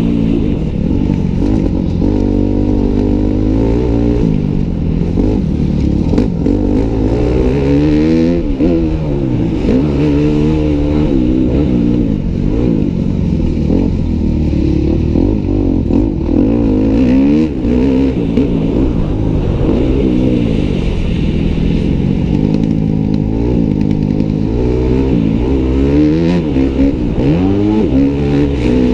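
Yamaha YZ250F four-stroke single-cylinder motocross engine racing hard, heard close up: its pitch climbs under throttle and drops back again and again through gear changes and corners.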